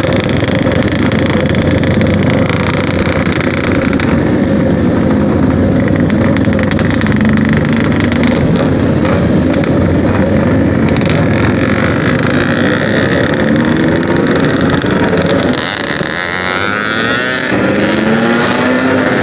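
Yamaha RX-King's two-stroke single-cylinder engine running steadily under way, its exhaust note loud and continuous; about three-quarters of the way through it eases off briefly and its pitch shifts.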